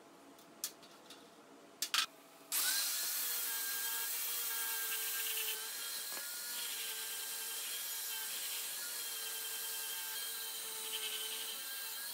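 An angle grinder with a brush wheel starts about two and a half seconds in and runs steadily against a rusty steel hydraulic-jack cylinder, a hissing scrub with a steady motor whine over it. Before it, a couple of sharp clicks.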